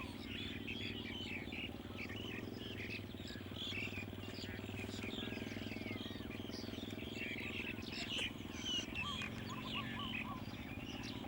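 Many short bird chirps over a steady low hum, which shifts slightly about nine seconds in.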